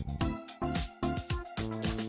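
Background music with a steady electronic beat, a kick about twice a second.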